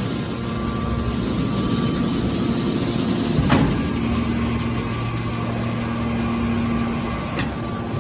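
Heavy-duty baler's machinery running with a steady hum. A sharp clank comes about three and a half seconds in, and a fainter one near the end.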